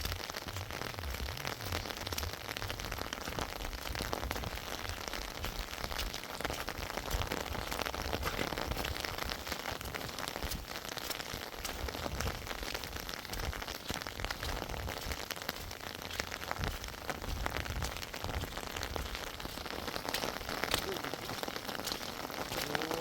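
Steady rain falling, a dense stream of small drop impacts with a low uneven rumble underneath.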